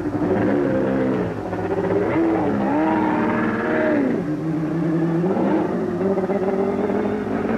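Indy race car engine running and revving, its pitch rising and falling several times as the throttle opens and closes.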